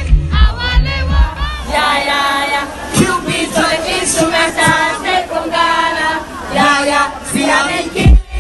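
Live concert music with a heavy bass beat, which drops out about two seconds in, leaving a large crowd singing along loudly with the performer. A loud thump near the end.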